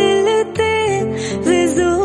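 Punjabi pop song playing as a phone ringtone: a bending melody line over steady bass notes.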